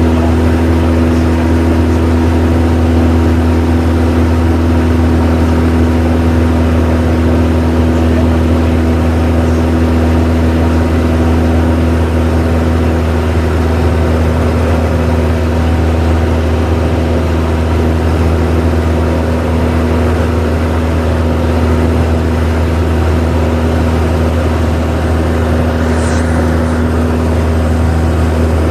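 Ultraflight Samba XXL light aircraft's piston engine and propeller running at a steady cruise power, heard as a loud, even drone from inside the cockpit.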